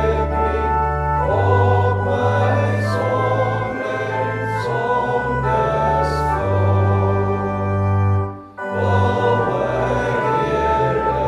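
Congregation singing a metrical psalm in Afrikaans with organ accompaniment, in slow held notes. About eight seconds in the sound breaks off briefly at the end of one verse, then organ and singing start again on the next verse.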